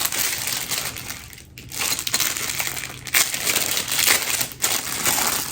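Packaging of a travel cutlery set rustling and crinkling as it is opened by hand, with many small clicks and a brief lull about a second and a half in.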